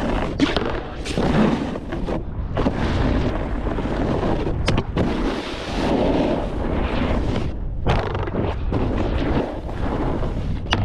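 Snowboard riding on snow: wind rumbling on the microphone while the board's edges scrape and hiss through turns, in surges that come and go, with one sharp knock about halfway through.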